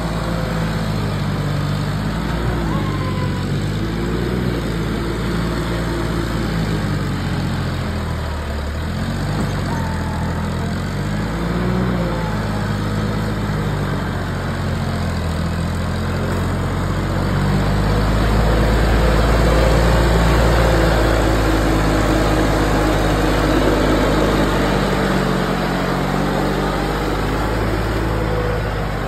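John Deere 5310 tractor's three-cylinder diesel engine pulling hard under a heavy load through deep mud, its pitch rising and falling repeatedly as the throttle works, and growing louder past the middle.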